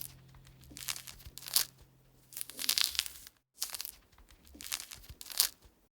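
Paper crinkling and tearing in several separate bursts, typical of the backing or application paper being peeled off new vinyl boat lettering.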